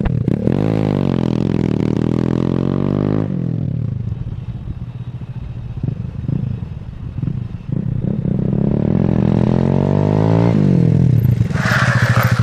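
Motorcycle engine pulling away hard, its pitch shooting up and then easing down, then fainter with uneven blips for a few seconds, then revving up again as it comes back close. The engine sound stops abruptly about ten and a half seconds in, and a short scraping hiss follows near the end.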